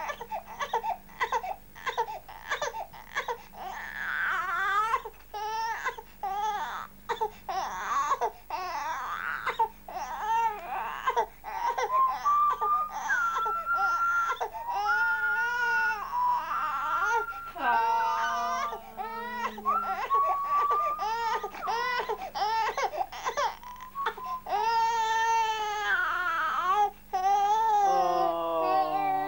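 Young infant crying in a long run of short, pitched cries broken by quick breaths.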